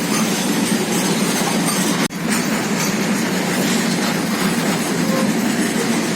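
A passenger train running on the track, with a steady loud rumble of wheels on rail. The sound drops out for an instant about two seconds in.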